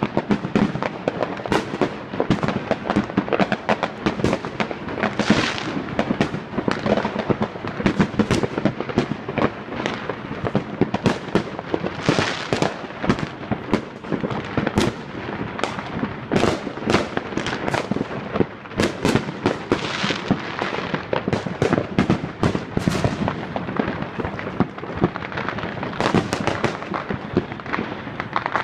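Fireworks going off non-stop, many at once: a dense barrage of overlapping bangs and crackles with no pause.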